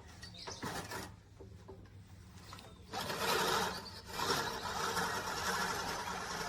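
A 16-inch, 5-blade manual push reel mower whirring as its reel spins and cuts grass while it is pushed along. The sound is quieter for the first three seconds, then gets louder and steadier, with a brief dip about a second later.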